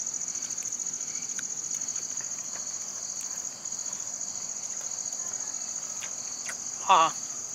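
Insects chirring in a steady high-pitched trill. A brief human voice sounds once near the end.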